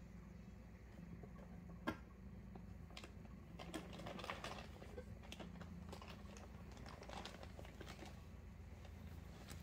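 Faint irregular scratches and taps of a cat's claws and body against a cardboard box as it turns and settles inside, with one sharper click about two seconds in.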